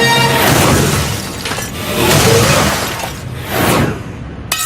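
Cartoon sound effects of glass smashing, a run of about four crashes a second or so apart, each ringing off, with music underneath.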